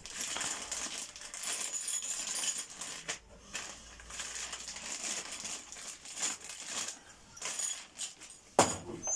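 Clear plastic parts bag crinkling and the small hardware inside it clinking as it is handled, with one sharp click near the end.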